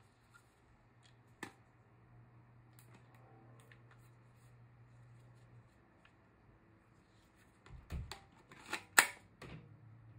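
Hard plastic clicks and knocks as a Hilti Nuron 22 V battery pack is handled and slid onto the SB 4-22 band saw. A cluster of knocks near the end ends in one sharp snap as the battery latches into the saw.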